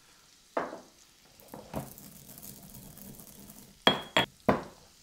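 Coriander seeds being pounded with a pestle in a black stone mortar: a couple of softer grinding strikes, then three sharp clinking blows near the end, the first ringing briefly.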